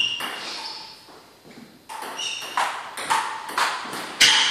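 Table tennis ball hit back and forth with paddles and bouncing on the table: sharp, ringing clicks. There is one hit, a lull of about a second and a half, then a rally of clicks at roughly two a second.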